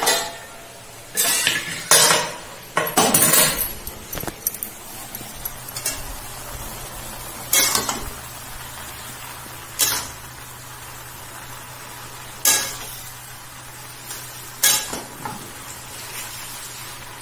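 Metal spoon stirring chopped vegetables in a steel vessel, knocking and clinking against the steel every couple of seconds, over a steady low hum.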